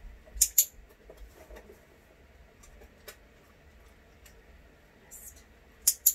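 A hand-held dog-training clicker clicking twice: one quick press-and-release double click about half a second in, and another near the end. These are the marker clicks of a clicker-training session.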